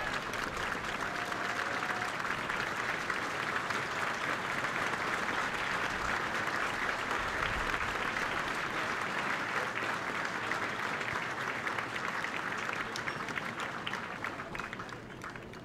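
Crowd applauding steadily, dying away over the last couple of seconds.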